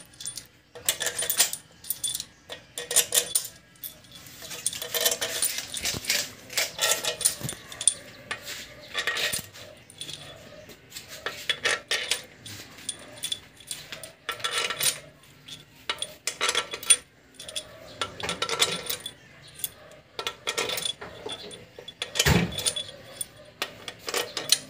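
Steel cylinder head bolts clinking together in a hand and rattling as they are dropped one by one into the bolt holes of a cylinder head: many irregular metallic clicks, with a heavier knock near the end.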